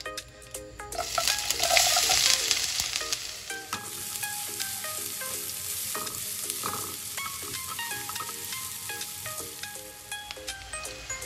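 Chopped onions tipped into hot oil with cumin seeds and dry red chillies in a nonstick pan: a loud sizzle burst about a second in, settling into a steady frying sizzle as they are stirred with a spatula.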